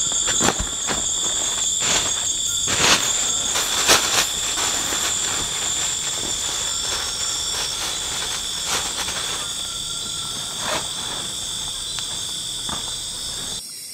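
Night insect chorus of crickets, a steady high-pitched chirring at two pitches, with scattered sharp clicks and knocks, the loudest a few seconds in. The chorus cuts off just before the end.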